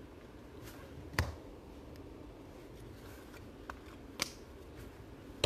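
Trading cards being handled over a table: a few short, sharp taps and clicks as cards are moved and set down, the loudest about a second in, over a low room hum.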